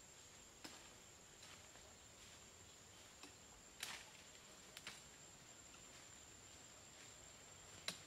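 Quiet woodland with a faint steady high-pitched insect whine, broken by a handful of light, sharp crackles of dry leaves and twigs underfoot as someone walks through the undergrowth; the loudest crackles come near the middle and at the end.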